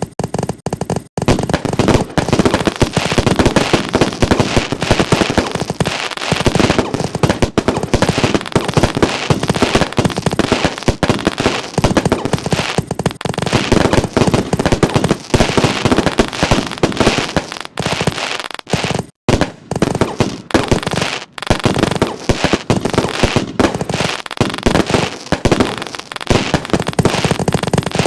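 Fireworks going off in a dense, continuous barrage of rapid bangs and crackles, starting suddenly and broken only by a few brief lulls.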